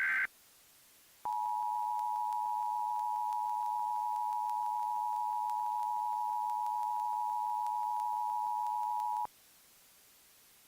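Emergency Alert System attention signal: two steady tones of about 853 Hz and 960 Hz sounding together for about eight seconds, starting about a second in and cutting off abruptly. It marks the start of a new alert, here a tornado warning. A brief tail of a higher, warbling SAME data burst sounds at the very start.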